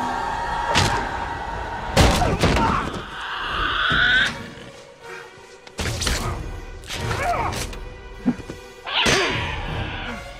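Action-film soundtrack: score music mixed with heavy thuds and impact sound effects, several hits in a row, the loudest about two seconds in.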